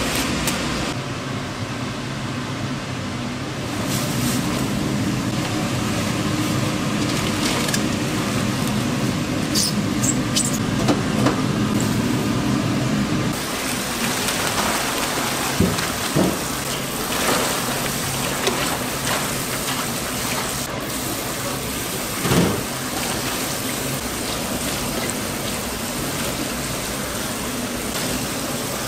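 Kitchen work noise: a steady machine hum with scattered clicks, then, after a change about 13 seconds in, an even hiss with a few sharp knocks, the loudest about 22 seconds in.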